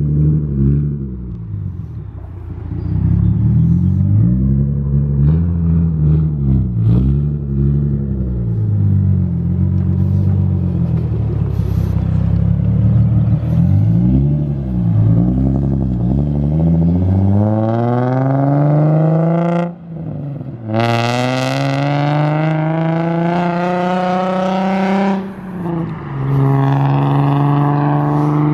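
Infiniti G37 sedan's V6 through an RZG single-exit exhaust, revved up and down in repeated blips. About two-thirds of the way in it pulls hard, the pitch climbing, with a short break for an upshift, another climb, a second shift near the end, and then a steady cruise.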